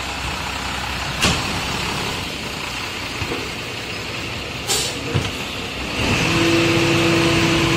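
Rear-loader garbage truck running, with two short hisses of air, about a second in and again near five seconds. About six seconds in the truck gets louder and settles into a steady hum.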